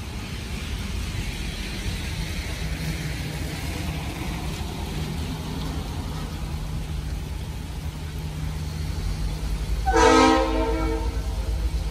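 Locomotive air horn of the loaded gravel train sounding one short blast about ten seconds in, over the steady low rumble of the passing train and of traffic on the wet street.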